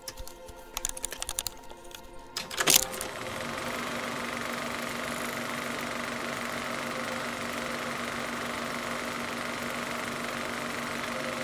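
Sound-design effects: scattered light clicks, then a loud whoosh-and-hit about three seconds in, after which a film projector sound effect whirs steadily with a constant hum.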